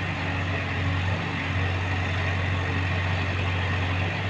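Heavy diesel engine running steadily at low revs, a constant deep hum.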